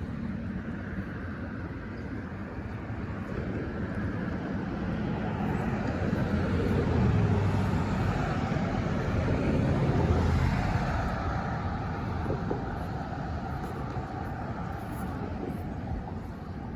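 Road traffic: a vehicle passes, building to its loudest about halfway through and then fading back to a steady background hum.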